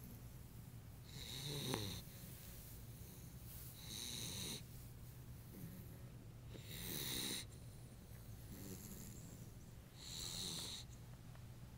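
A dog snoring: four slow snoring breaths, about three seconds apart.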